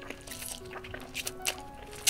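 Close-miked slurping of spicy cheese ramen noodles, several short wet slurps, over soft background music.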